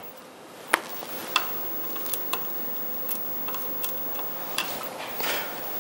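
Faint, scattered light clicks and scrapes of a fiberglass flux brush and a soldering iron tip working against a circuit-board chip's pins, with a brief soft hiss shortly before the end.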